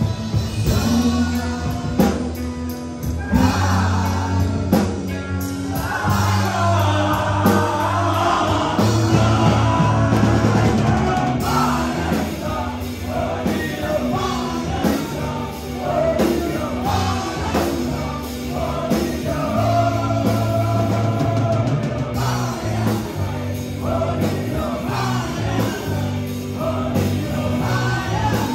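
Live rock band playing: a male lead singer over electric guitars, bass guitar and a drum kit.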